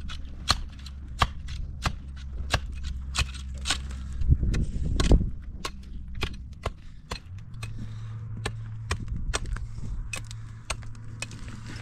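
Sharp knocks repeating irregularly, about three a second, over a low steady hum.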